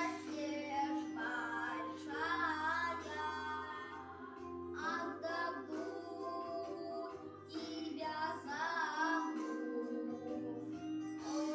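A child and a woman singing a Russian folk lullaby, the voices wavering with vibrato, over an instrumental backing track of sustained notes.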